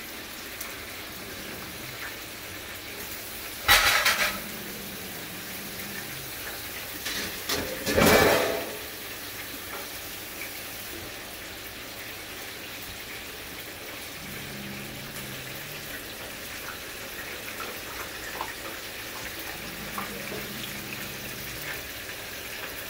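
Hot oil sizzling steadily in an electric deep fryer, with two short, loud clatters about four and eight seconds in.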